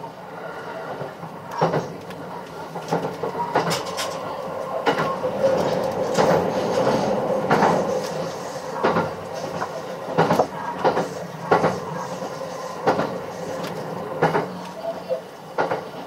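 Running noise inside a JR West 681 series limited express train car: a steady rumble and hiss, louder in the middle, with sharp clacks from the wheels every second or so, the beat of the rails passing beneath.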